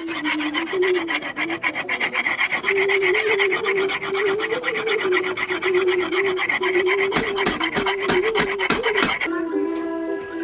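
Steel being filed by hand: rapid rasping strokes on a cleaver blade forged from a car leaf spring. A few heavier strokes come near the end, then it stops abruptly.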